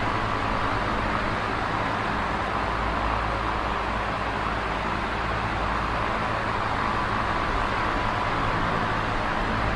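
Electric fan running steadily: an even whir with a low hum underneath, unchanging throughout.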